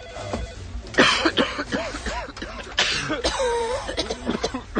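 People coughing, with two loud coughing fits about a second in and about three seconds in, and shorter voiced coughs and throat sounds between them.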